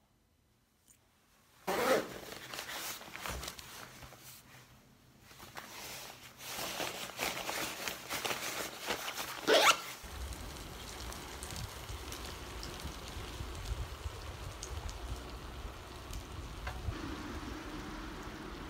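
Rustling and knocking handling noises that begin suddenly about two seconds in, then from about halfway a steady low rumble of wind buffeting the microphone and bicycle tyres rolling on wet asphalt.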